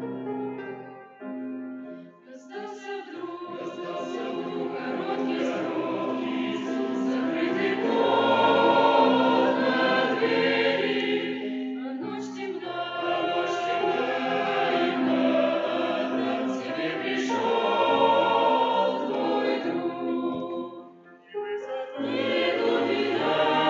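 Choir singing a hymn over a steady sustained accompaniment tone, with a short break in the singing about 21 seconds in.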